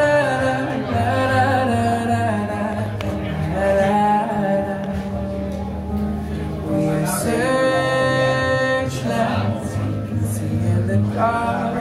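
Recorded pop song with a sung vocal melody over a steady bass line, played back for a lip-sync performance. The singer holds one long note a little past halfway.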